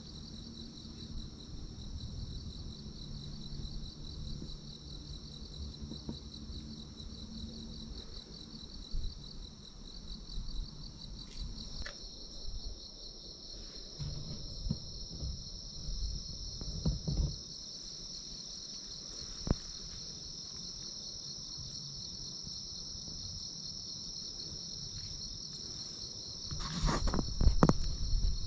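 A steady, high-pitched chorus of insects trilling without a break. Near the end come a few louder rustles and clicks of handling.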